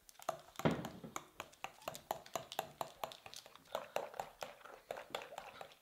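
Homemade slime being stirred and worked in a bowl: a quick, uneven run of wet, sticky clicks and squelches, about four or five a second.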